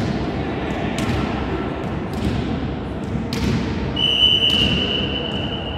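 A volleyball thuds on the hall floor a few times, each thud echoing. About four seconds in, a referee's whistle blows one long, steady blast, the signal for the serve.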